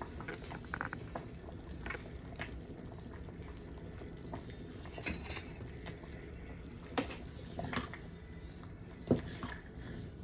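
Stainless steel pot of stewed beans bubbling at a simmer, with scattered sharp clicks and knocks; the loudest knock comes about nine seconds in, as a spoon goes into the pot to stir.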